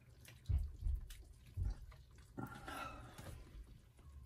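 A spoon scooping through wet chicken stew and gravy in a slow cooker's crock, with wet, dripping liquid sounds. There are a few dull thumps in the first two seconds and a louder wet stretch a little past the middle.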